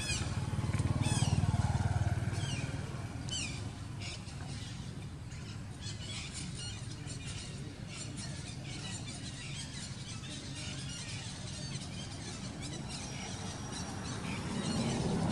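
Outdoor birdsong: quick, high, downward-sweeping call notes repeated several times in the first few seconds, then scattered shorter calls, over a low rumble that swells in the first two seconds and again near the end.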